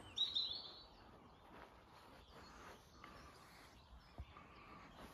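A short cluster of bird chirps about half a second in, then faint outdoor background.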